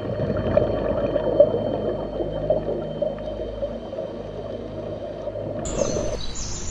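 Underwater bubbling and gurgling of water as sea lions swim and dive close past the microphone. Near the end, bird chirps come in.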